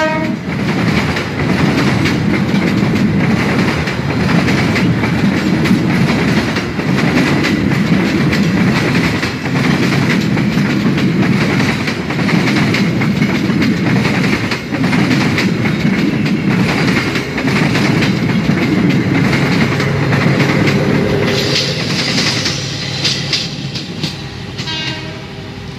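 Passenger coaches rolling past at close range, their wheels clattering steadily over the rail joints, fading over the last few seconds as the end of the train goes by. A locomotive horn cuts off right at the start, and brief high squeals come near the end.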